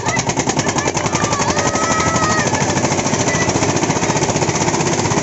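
Old Eicher tractor's diesel engine running at a fast, even beat of firing strokes.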